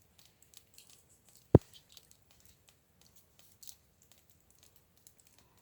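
A single short, loud thump about a second and a half in, among faint rustling and light ticks.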